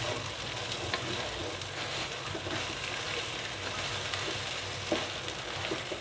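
Kalijira rice frying in hot oil and ghee in a pot, a steady sizzle, stirred with a few scraping clicks of the spoon against the pot.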